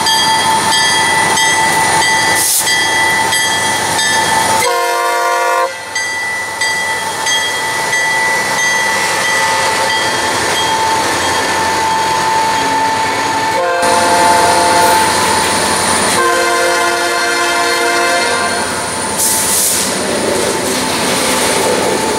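Norfolk Southern GP50 high-hood diesel locomotive passing with a train of covered hoppers: its horn sounds three chord blasts, about five, fourteen and sixteen seconds in, the later two longer, over the steady run of the train and the clatter of the cars on the rails. A thin high ringing tone runs under it throughout.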